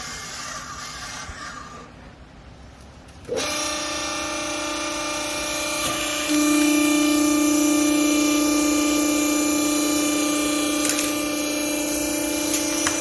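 Wiper rag baling machine running: a steady machine whine with several pitches starts abruptly about three seconds in and gets louder a few seconds later, then holds steady.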